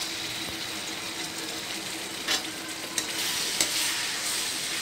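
Ginger-garlic paste sizzling as it fries in hot oil in a kadai, stirred with a metal slotted ladle. A few sharp clicks come in the second half, and the sizzle grows louder near the end.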